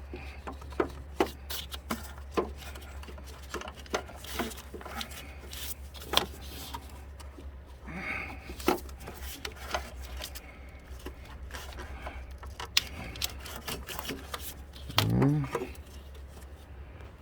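Metal hand tools and engine parts clicking and knocking irregularly while the timing belt is worked off a 2.4-litre engine, over a steady low hum.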